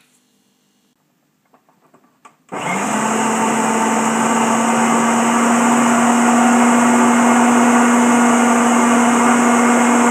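Electric food processor switched on after a few small clicks about two and a half seconds in, its motor spinning up and then running loud and steady with a constant hum as the blade chops a thick mix of salmon, carrots and butter.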